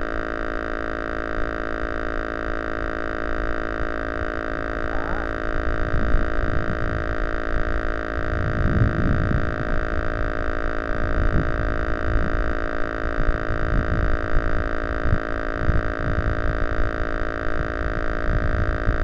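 Steady electrical whine with many fixed tones that never change pitch, picked up by an FPV RC plane's onboard camera from its transmitter and motor electronics. Gusty wind buffets the camera's microphone from about four seconds in.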